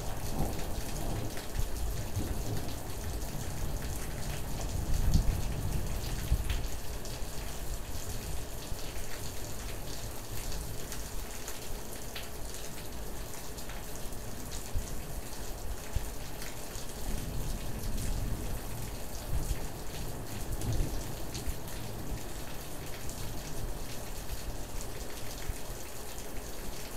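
Steady rain falling, with many small drops ticking close to the microphone. Low rumbling swells come in about five seconds in and again around eighteen to twenty-one seconds in.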